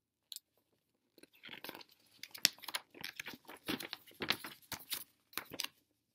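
A glossy paper brochure rustling and crinkling as it is handled and turned over close to the microphone: a dense, irregular run of crackles starting about a second in.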